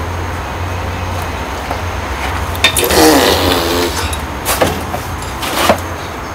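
A bare pit bike engine being lifted and manoeuvred against the bike's frame: a few sharp metal knocks over a steady low rumble, with a brief wavering pitched sound about three seconds in.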